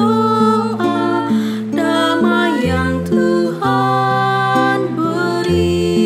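A small women's vocal group singing a slow hymn in harmony, accompanied by a plucked acoustic guitar.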